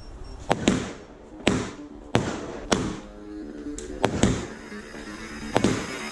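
Fireworks going off in a string of sharp bangs, about ten in six seconds, some in quick pairs, over electronic background music with steady held notes.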